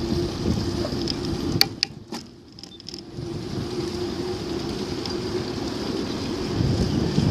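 Wind noise on the microphone during a bicycle ride, with a few sharp clicks about a second and a half in and a brief lull just after.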